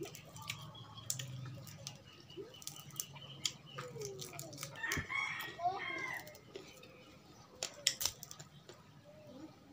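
Crackling and crunching as crispy fried food is torn apart by hand and bitten, with many sharp cracks. About halfway through, a chicken calls in the background for a second or two.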